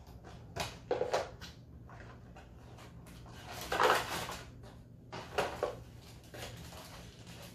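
Cardboard puzzle boxes being opened and handled, with a plastic bag of puzzle pieces rustling: a few short crinkling bursts and taps, the loudest about four seconds in.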